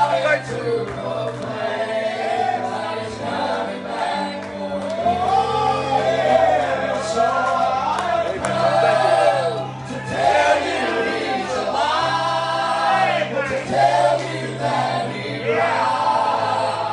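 A man and a woman singing a gospel song together through microphones, over an instrumental accompaniment with a steady bass line.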